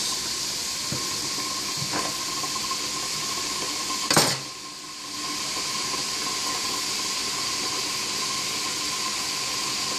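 Steady hiss, with one sharp clink about four seconds in.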